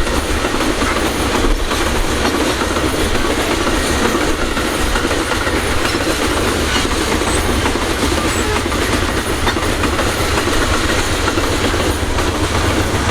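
Freight train rolling past, its wagons making a steady rumble with wheel clickety-clack on the rails.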